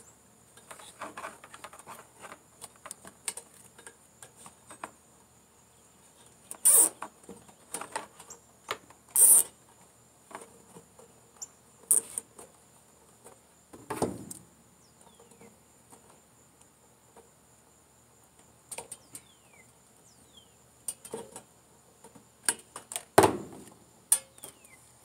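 Hands working wires and a bracket into a Craftsman lawn tractor's plastic hood: scattered small clicks, rattles and scrapes, with a handful of louder knocks.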